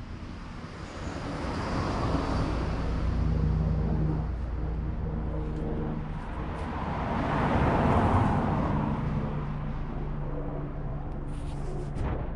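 A motor vehicle engine running steadily, with a rushing noise that swells twice and fades, and a sharp click near the end.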